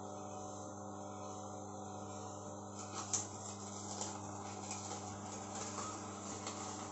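Hurom DA1000 slow juicer running with a steady motor hum. From about three seconds in, sharp cracks and snaps from celery being crushed by the auger, the loudest a single crack just after three seconds.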